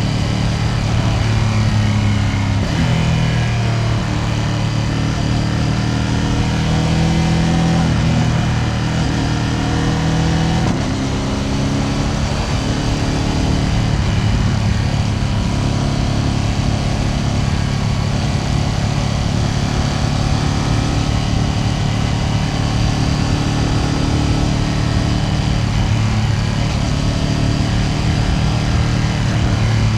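Ducati Panigale V2S's V-twin engine running under way, its note rising and falling in steps several times as the throttle and gears change.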